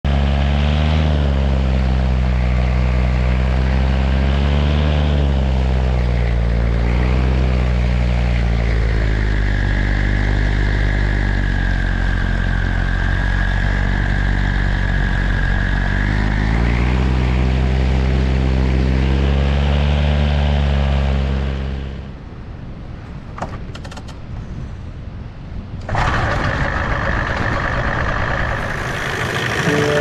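Paramotor engine and propeller running in flight, its pitch dipping and rising again a few times, with a high steady whine added for several seconds midway. About three-quarters of the way through the engine sound drops away to a quieter rush, and a louder noisy rush comes in near the end.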